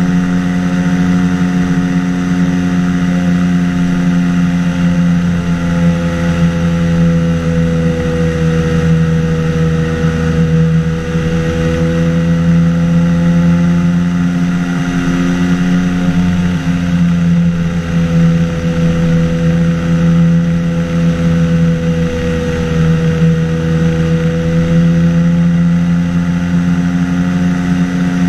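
Engine and pusher propeller of a flying-boat microlight trike in cruising flight, a loud steady drone whose pitch drifts slightly up and down.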